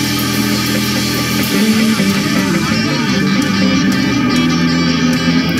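Music played with guitar and bass: steady sustained chords, the harmony changing about a second and a half in.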